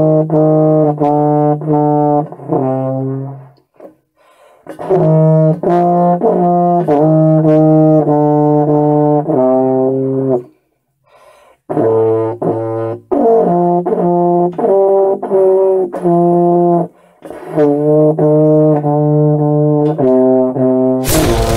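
A euphonium played by someone for whom it is not the main instrument: runs of short notes stepping up and down, about two a second, in four phrases with short breaks for breath. A short, loud rush of noise comes near the end.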